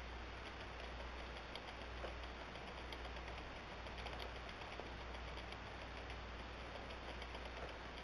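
Hand-cranked wooden automaton mechanism turning: faint, irregular clicks and ticks from its hand-cut wooden gears, cams and levers, over a steady hiss and low hum.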